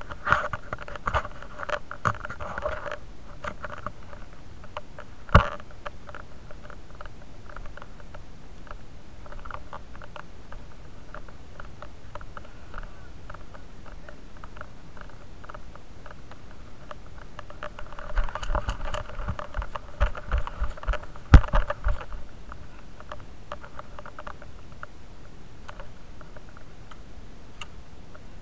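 Handling and movement noise on a gear-mounted action camera: steady rustling and light patter, with a sharp knock about five seconds in and a cluster of knocks and thuds around eighteen to twenty-two seconds in, the loudest near twenty-one seconds.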